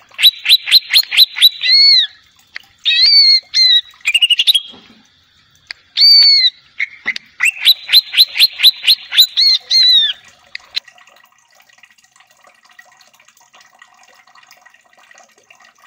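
Cucak ijo (greater green leafbird) calling loudly in fast runs of sharp whistled notes, about six a second, with a few single rising-and-falling whistles in between. After about ten seconds the calls stop, leaving only a faint steady background.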